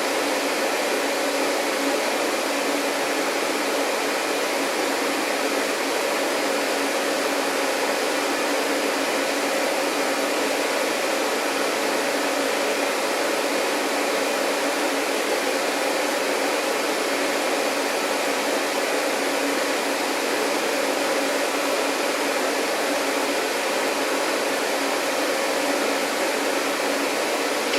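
Vacuum cleaner running steadily: an even, unchanging whoosh of airflow with a faint motor hum.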